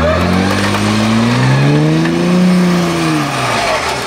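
A Jeep Wrangler's engine revs up and back down once over about three seconds, over a steady lower idle, during a winch recovery out of deep mud.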